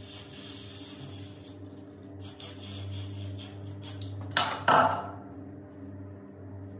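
Got2b aerosol hair spray hissing in short sprays onto the hairline, followed a little after four seconds by two loud, sharp clattering sounds.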